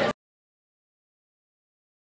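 Crowd chatter cut off abruptly right at the start, then digital silence.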